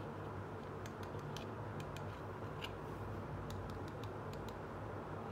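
Light clicks and taps of a small hard-plastic toy piece being handled and turned in the fingers, about a dozen scattered short clicks, over a steady low hum.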